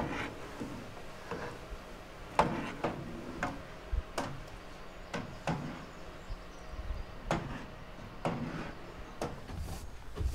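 Kitchen clatter: a ladle and pots knocking and clinking at a stove, a string of short separate knocks about one a second.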